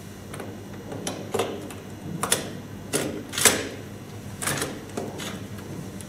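Fingerprint lock cylinder being pushed into a door's lock body, with a series of irregular metallic clicks and knocks; the loudest comes about halfway through.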